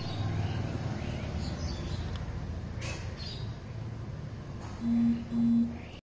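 Engine oil pouring from a plastic jug through a funnel into a motorcycle engine's oil filler, a steady low rush. Faint bird chirps come and go, and two short low hums sound near the end.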